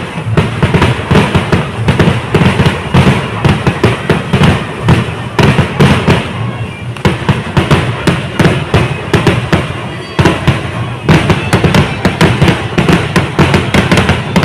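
Temple fireworks (vedikkettu) going off in a dense, rapid barrage of loud firecracker bangs, several a second and overlapping. It slackens briefly around ten seconds in, then starts up again at full strength.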